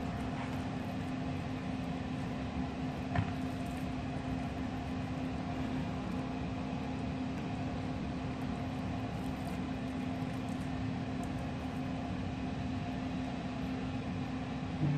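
Steady mechanical hum with a constant low tone, and one faint click about three seconds in.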